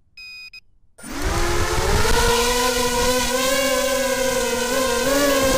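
A short electronic beep, then about a second in an FPV quadcopter's electric motors and propellers spin up into a loud, steady buzzing whine as it lifts off. The pitch rises briefly at the start, then holds, wavering slightly near the end.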